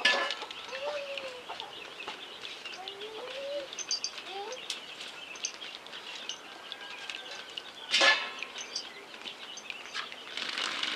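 Chickens clucking in short rising-and-falling calls, with small birds chirping high above. A single sharp knock comes about eight seconds in, and a steady hiss starts near the end.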